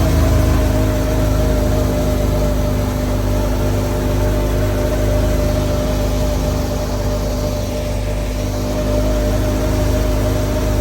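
A heavy engine running steadily at constant speed, with a steady whine over its low rumble.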